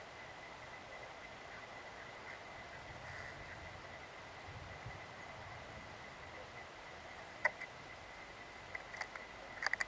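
A Steller's jay on a weathered wooden log gives a single sharp click about seven and a half seconds in and a quick run of sharp clicks near the end. Under this is a faint steady hiss.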